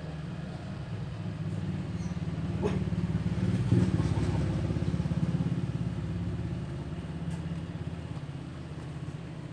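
A motor vehicle's engine running, growing louder to a peak about four seconds in and then fading, as a vehicle passes by.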